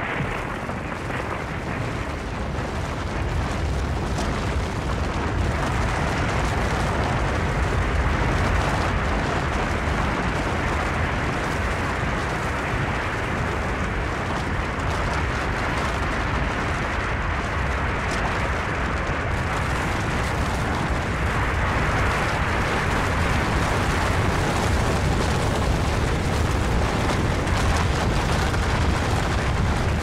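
Snow-and-rock avalanche sound effect: a continuous heavy rumble with a rushing, crumbling noise over it, growing a little louder near the end.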